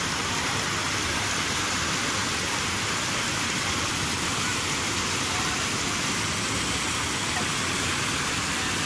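Water spilling over a low concrete weir and splashing into the pool below: a steady, even rushing hiss.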